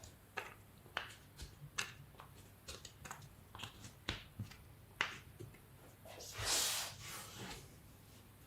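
Wooden boards being fitted together by hand at a biscuit joint: scattered light taps and clicks, with a short sliding rub of wood on wood about six and a half seconds in.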